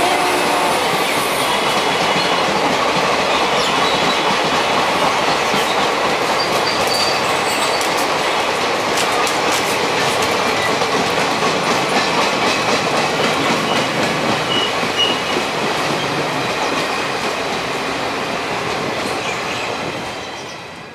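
Passenger train coaches rolling past, their wheels clattering over the rail joints with a few brief high wheel squeals. The noise fades over the last few seconds as the end of the train goes by.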